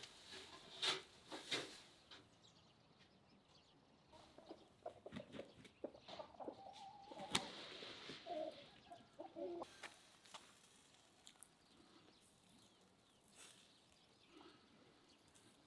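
Chickens clucking faintly, a run of short calls in the middle. Preceded by a couple of sharp clicks about a second in.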